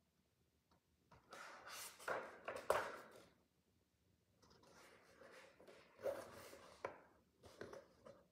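Rustling and light taps of things being handled close to the microphone, in two spells with a short quiet gap between them.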